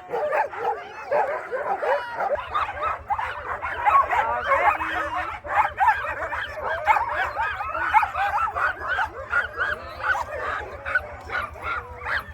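Many harnessed sled dogs barking, yipping and whining all at once in a continuous overlapping clamour, as a hitched team does while waiting to run. A faint low hum comes in about two seconds in beneath them.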